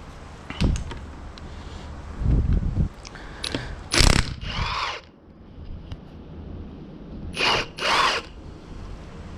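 A power tool with a socket running in several short bursts, spinning bolts out of a manual transmission's housing during teardown, with its motor pitch rising and falling on each run.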